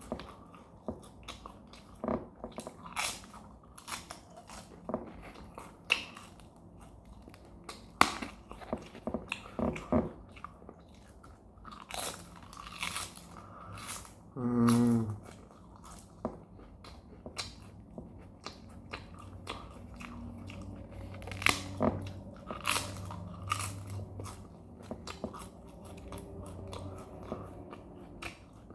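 Close-miked crunchy bites and chewing of dry, crisp food, in irregular crunches a second or so apart. A brief pitched sound, like a short hum, comes about halfway through.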